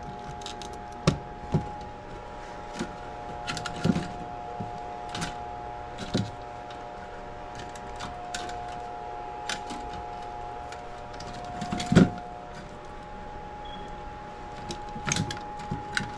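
Scattered clicks and light knocks of wires and connectors being handled inside an air handler's wiring compartment, the loudest knock about twelve seconds in, over a steady hum.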